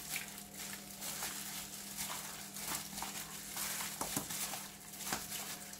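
Gloved hand mixing chunks of raw pork neck in a wet marinade in a plastic bowl: soft wet squishing of the meat with crinkling of the thin plastic glove and small irregular clicks.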